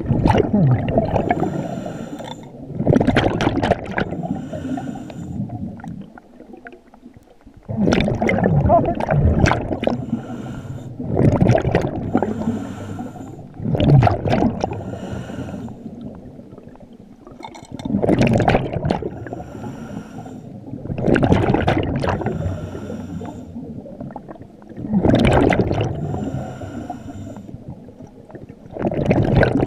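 Scuba diver's regulator breathing underwater: a bubbly gurgling burst of exhaled bubbles every three to four seconds, about nine in all, with quieter stretches between breaths.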